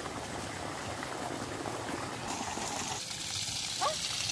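Water from a garden hose gushing out and splashing onto leaves and soil, a steady hiss. A short squeak comes near the end.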